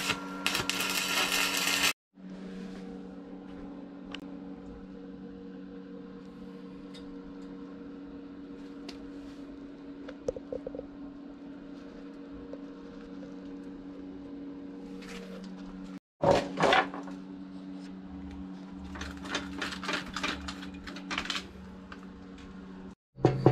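Wire-feed welder arc crackling for about two seconds, then a steady electrical hum. A short loud clatter comes about sixteen seconds in, and a run of clicks and rattles a few seconds later.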